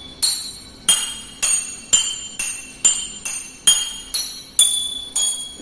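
Water-filled drinking glasses struck one after another, about eleven clear ringing notes at roughly two a second. Each glass rings at a different pitch, set by how much water it holds.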